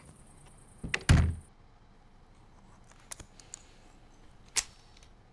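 A heavy thud about a second in, then a few light clicks and one sharp knock near the end, in a quiet room.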